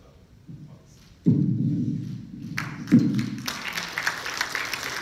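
A deep thud about a second in and another near three seconds, then audience applause breaking out and running on in a large hall.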